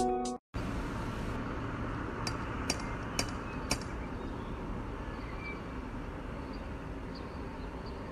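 Four sharp metallic clinks about two to four seconds in, from a cat clinging to a front door and rattling its metal knocker and fittings, over a steady outdoor street background.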